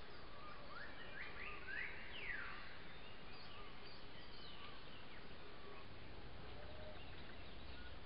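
Wild bird calls: a quick run of sharp rising notes about a second in, ending in a longer falling sweep, then fainter scattered calls, over steady hiss.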